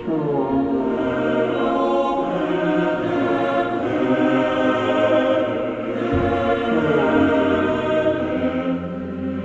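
Soundtrack music: a choir singing long held chords, with a deep bass note coming in about six seconds in.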